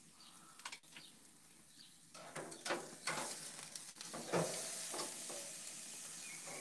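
A thick bone-in steak being handled and flipped with tongs on a hot gas-grill grate: a few short scrapes and knocks, the loudest about four seconds in as it is turned over, then a steady sizzle as the raw side meets the grate.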